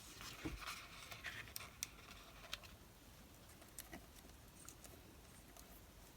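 Faint rustling and light clicks of paper card pieces and craft tools being handled, busiest in the first couple of seconds and then a few scattered ticks.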